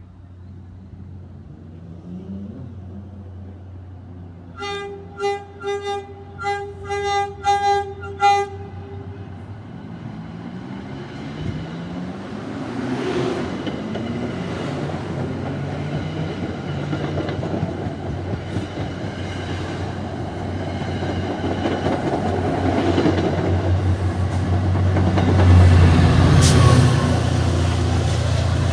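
Train horn sounded in a quick series of short blasts, over a low engine hum. Then the train approaches and passes close, its engine and wheel noise building to the loudest point near the end, with a high wheel squeal.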